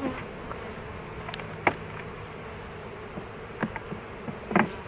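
Honey bees buzzing around an open hive, a steady hum. A few light wooden knocks come from the hive frames being moved.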